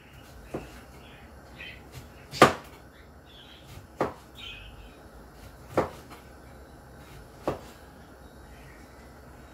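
Kitchen knife slicing through a lemon and knocking down onto a cutting board: five sharp knocks spaced about one and a half to two seconds apart, the second one the loudest.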